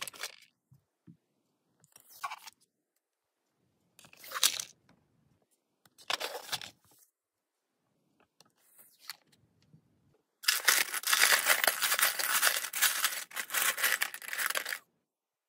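Plastic parts-organiser drawers being slid open and handled, a few short scrapes and rattles a second or two apart. Then about four seconds of a hand rummaging through a pile of loose steel nuts, bolts and washers, a dense clinking rattle that is the loudest part.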